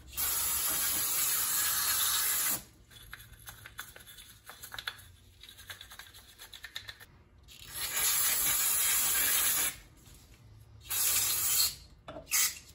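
Aerosol carburetor cleaner hissing out of the can in long blasts into a small-engine carburetor body: one of about two and a half seconds, a pause, a second of about two seconds, then a short one and two quick spurts near the end. In the pause between the first two blasts, quieter scratchy scrubbing at the carburetor.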